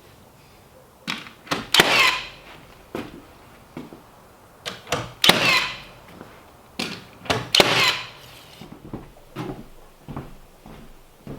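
Irregular knocks and thunks of work on timber, with three louder strokes that each ring on for about half a second, then lighter knocks.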